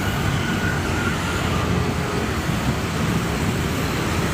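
Steady rumbling of a train running on the rails, with a faint high thin tone in the first second.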